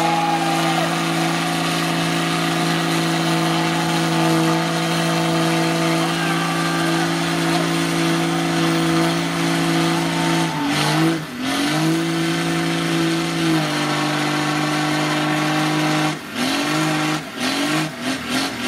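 Pickup truck engine held at high revs as the truck churns through deep mud with its tyres spinning. Past the middle the revs drop and climb back a few times, and near the end it revs up and down in quick pulses.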